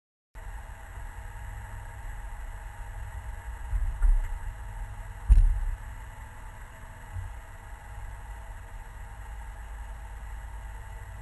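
Muffled low rumble of a parked car with its engine idling, heard through a camera housing on the hood. Two dull thumps come about four and five seconds in.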